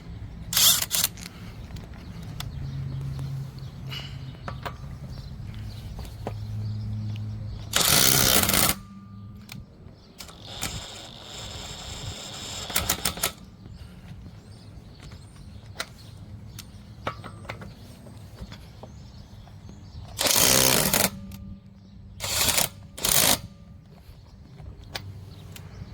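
Ridgid R8721B half-inch cordless right-angle impact wrench hammering in several short bursts, breaking loose and spinning off lug nuts torqued to about 100 ft-lb. The loudest bursts come about eight seconds in and again about twenty seconds in, with a steady low hum between them.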